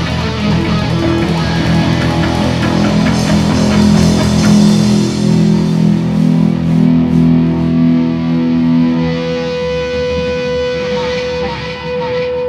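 Rock band music led by electric guitar; in the last few seconds a single held note rings on.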